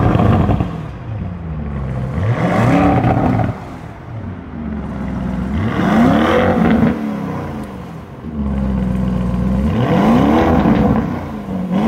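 2019 Lamborghini Urus's twin-turbo 4.0-litre V8 revved at standstill through its quad exhaust in Corsa mode. Three revs about four seconds apart, each climbing, holding briefly and dropping back toward idle, with another starting near the end.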